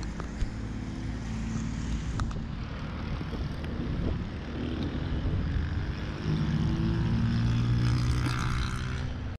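Road traffic: the steady hum of vehicle engines passing on an adjacent road, swelling louder about six seconds in as an engine passes close by.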